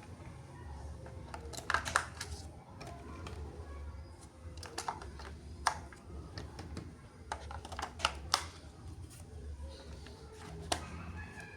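Toys and their plastic packaging being handled: scattered sharp clicks and taps, the loudest about two seconds in and twice around eight seconds in, over a steady low hum.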